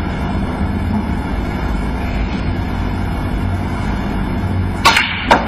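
Snooker cue tip striking the cue ball near the end, followed about half a second later by a sharper click of ball on ball, over the low steady hush of an arena.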